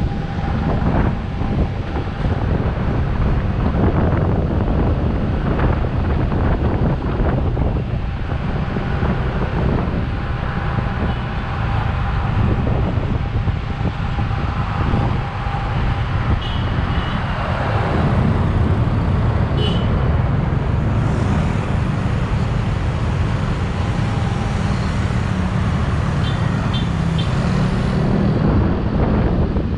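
Road traffic heard from a moving motorcycle: the bike's engine and the cars and trucks around it make a steady rumble throughout.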